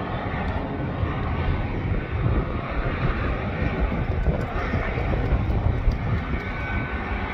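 A Dash 8 Q400's Pratt & Whitney PW150A turboprop engine running at ground idle just after start-up, while the other engine is not yet started. The sound is a steady rumble with a faint whine on top.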